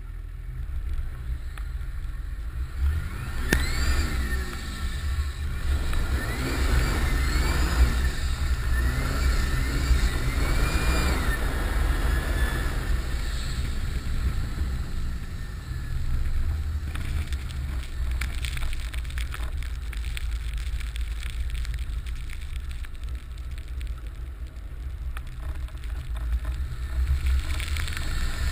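Nissan Patrol Y60's 2.8 turbodiesel straight-six is revved up and down over a heavy low rumble. Its turbo whistles, rising and falling in pitch with the revs, from about three seconds in until about thirteen seconds in. In the second half a rough, crackly rattling joins the engine.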